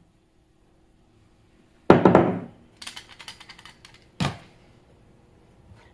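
Hands working a ball of biscuit dough on a floured wooden countertop: a loud thump about two seconds in, a few light taps, then a second thump about two seconds later.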